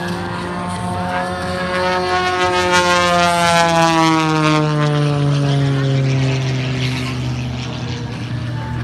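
Extra 330SC aerobatic plane's six-cylinder piston engine and propeller passing low overhead, a loud drone whose pitch falls steadily as it goes by. It is loudest about halfway through.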